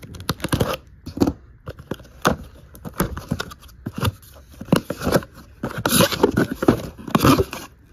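Cardboard shipping case being opened by hand: irregular scraping, crackling and tapping of cardboard and packing tape as the flaps are pulled back, with a busier flurry about six and seven seconds in.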